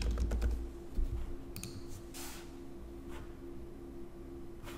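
A few faint clicks from a computer keyboard and mouse as a name is typed and a form is submitted, over a steady low hum.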